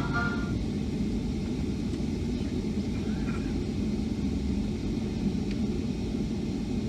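Steady low rumble of a Boeing 757-200's passenger cabin, with the jet's engines and air systems running on the ground.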